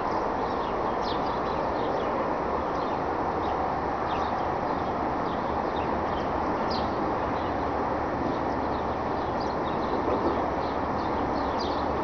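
Steady outdoor background rumble with small birds chirping now and then. A faint bang comes about ten seconds in, one of the strange banging noises the uploader has been recording outside.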